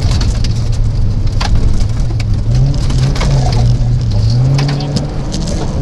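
Rally car engine heard from inside the cabin at speed, its note stepping up and down several times with throttle and gear changes. Gravel stones clatter and ping against the car's underside throughout.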